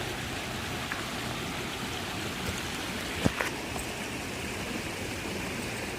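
Steady rushing of a small creek running over rocks, with one light click a little over three seconds in.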